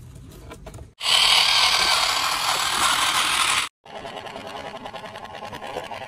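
Toy RC truck's small electric motor and plastic gears whirring and rattling, with plastic scraping on dirt and rock. A loud stretch starts abruptly about a second in and cuts off suddenly, followed by a quieter, fast rattle.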